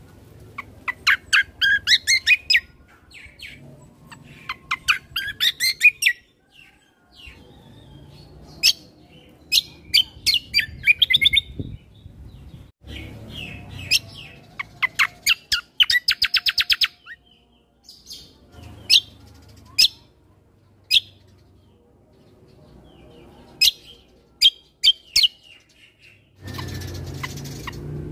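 Kecial kombo (cucak kombo) songbird singing in the wild: repeated bursts of rapid chirps and quickly rising note series, with a fast even trill about two-thirds of the way through. Under it runs a low rumble of outdoor background noise.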